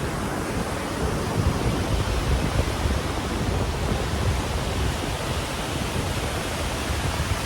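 Steady ocean surf, overlaid with wind buffeting the microphone in uneven low gusts.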